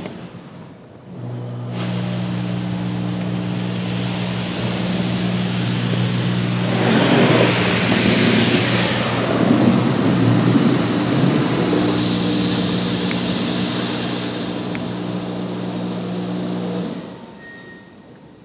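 PDQ Tandem Surfline rollover car wash machine working over the car, heard from inside the cabin: a steady motor and pump hum with water spray hissing on the body and glass, loudest about seven to nine seconds in. The hum starts about a second in and cuts off about a second before the end.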